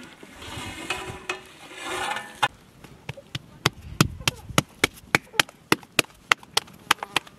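Bread dough slapped back and forth between a woman's palms to flatten it into a round: a quick, even run of sharp slaps, about three or four a second, starting a couple of seconds in. Before the slaps there are about two seconds of a hazy, rushing sound.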